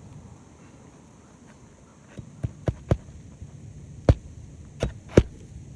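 Hammer driving roofing nails into asphalt shingles: a run of four quick, lighter taps, then three harder, louder strikes about a second later, over a faint low hum.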